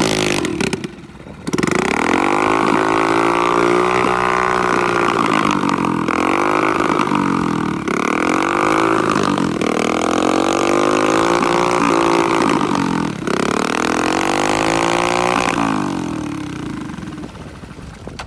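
Step-through motorbike's small single-cylinder engine revved hard again and again with its rear wheel spinning in mud: about six rises and falls in pitch, a brief dip just after the start, and the engine easing down to a lower, steadier running near the end.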